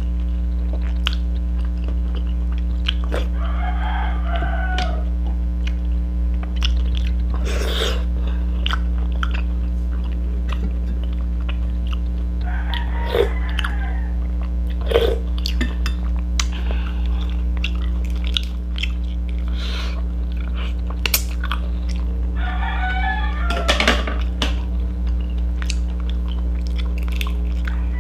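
Close-up eating sounds: chewing and scattered small clicks as mussels in soup are eaten by hand, over a steady low hum. A rooster crows in the background three times, about four seconds in, near the middle and near the end.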